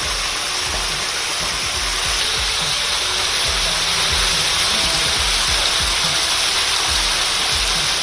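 Steady rushing and splashing of an artificial waterfall pouring into a pond, with music playing faintly underneath.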